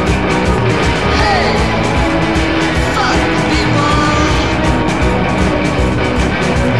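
Live rock band playing loudly, led by two electric guitars, as heard from among the audience.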